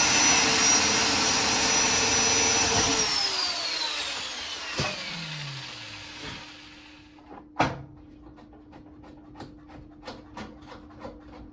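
Electric drill running at full speed to bore a screw hole, then released and winding down with a falling whine about three seconds in. A sharp knock follows near the end, then faint ticking.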